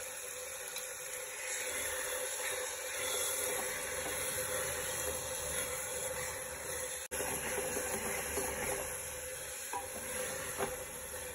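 Onion-tomato masala sizzling steadily in oil in an open aluminium pressure cooker, roasting on a medium flame. A steel spatula stirs it and scrapes the pot, with a few light clinks near the end.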